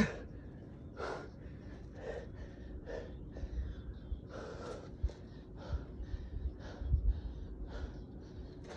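Hard, gasping breaths from a man resting in a push-up plank partway through a long set, about one breath a second, out of breath from the exertion.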